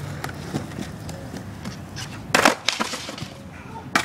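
Skateboard clattering on concrete as the skater bails a trick and falls to his hands: one loud clatter about two and a half seconds in, a few smaller knocks just after it, and another sharp knock near the end.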